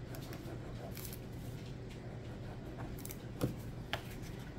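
Soft scratching and light taps of paper cardstock being handled while a liquid glue bottle's dauber tip is run along its edges, with two sharper clicks near the end.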